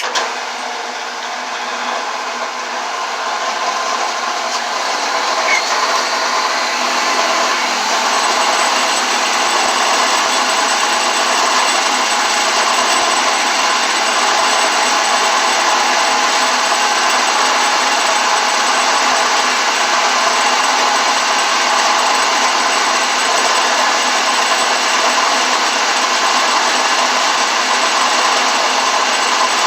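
Shopsmith Mark V's motor running in drill-press mode, drilling a hole through a plastic disc: a loud, steady machine noise that starts abruptly, builds over the first several seconds, then holds level.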